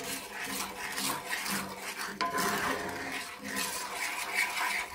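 Wooden spoon stirring and scraping butter and brown sugar around a cast iron skillet, in quick repeated strokes, with a sharper click about two seconds in.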